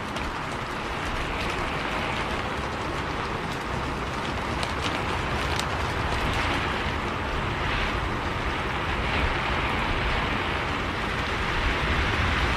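Steady rain noise heard from inside a moving bus, a low rumble from the ride underneath and a few faint ticks of drops.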